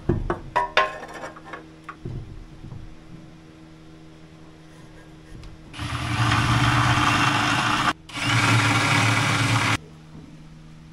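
Several sharp metal clanks near the start, then a power tool runs in two bursts of about two seconds each, with a brief break between them, starting and stopping abruptly.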